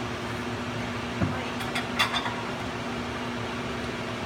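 Steady mechanical hum with a low background hiss, with a soft knock about a second in and a few light clicks just after.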